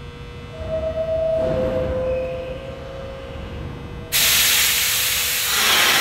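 R46 subway train at a station: a falling two-note door chime, each note held about a second, then about four seconds in a sudden loud burst of compressed-air hiss from the train's brakes releasing before it pulls out.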